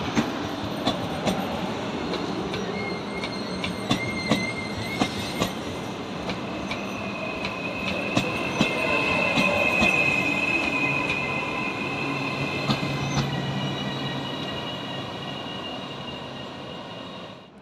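Trenord Caravaggio double-deck electric train running slowly past along the platform track. Its wheels click sharply over the rail joints and squeal in a high steady tone from about three seconds in, loudest around the middle, with the sound fading near the end.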